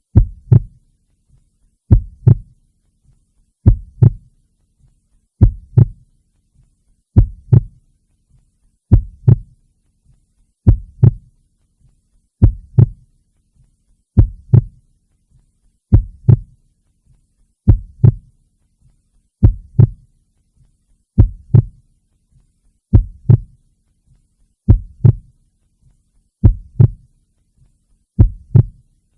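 Heartbeat: a slow, even lub-dub, each beat a pair of low thumps close together, repeating about every 1.8 seconds.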